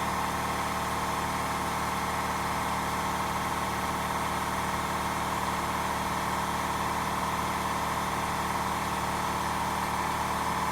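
A machine running steadily: an even drone with several steady hum tones, the strongest a mid-pitched hum, holding the same level throughout.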